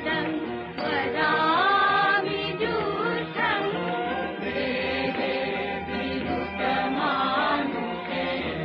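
Devotional music: chanted singing by voices with a choir, the melody bending and gliding over steady held notes.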